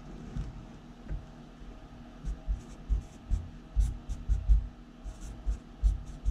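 A Sharpie marker writing figures on a sheet of paper on a desk. It makes a run of short, irregular scratchy strokes and light taps.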